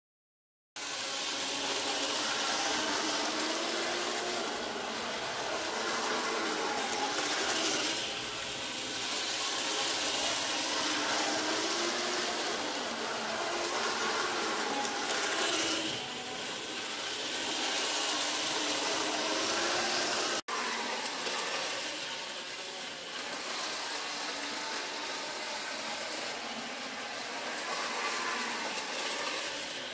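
Z-scale model train running on the layout's track: a steady hiss of wheels and small motor, with a faint whine that rises and falls as it goes round the loops.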